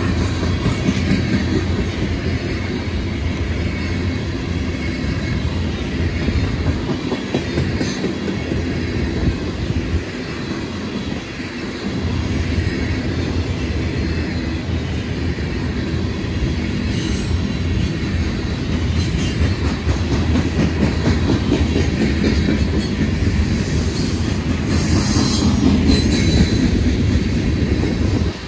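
Freight train rolling past close by: a steady, loud rumble of steel wheels on the rails, with the clatter of the cars.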